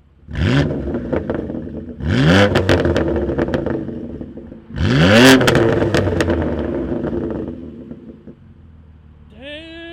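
BMW F80 M3's twin-turbo inline-six, with a VRSF single midpipe in place of the secondary cats and mid resonator, blipped three times, each rev rising sharply and falling back with crackling pops and burbles on the overrun. A steady held tone comes in near the end.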